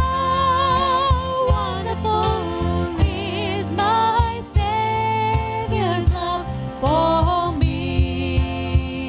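Church worship band music: a wavering melody line over sustained chords, a steady bass and a regular drum beat.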